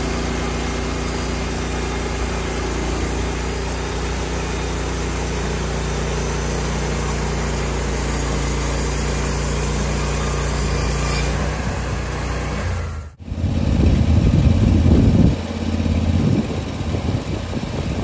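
Gas engine of a portable band sawmill running steadily while the blade saws along a log. About 13 seconds in the sound cuts out abruptly, then comes back louder and rougher.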